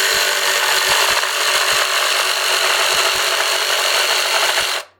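Kobalt 24-volt Max brushless cordless jigsaw cutting through wood with its orbital action at maximum and the dust blower on, running steadily and stopping just before the end.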